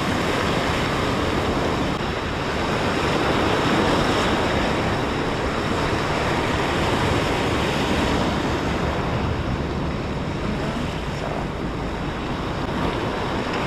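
Steady rush of surf and moving water at a rock jetty, with wind buffeting the microphone.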